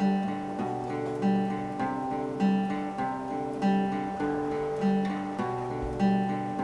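Acoustic guitar playing a steady, repeating chord pattern, a plucked or strummed chord about every second or so, with no singing over it.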